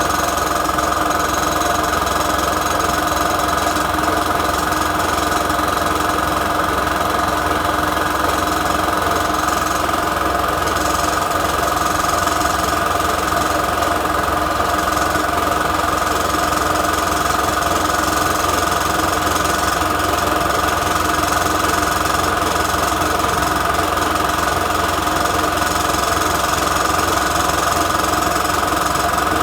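Electric piston air compressor running steadily, its motor driving the air piston to charge the tank toward its rated maximum of about 8 bar. It makes a constant, unchanging hum and pounding.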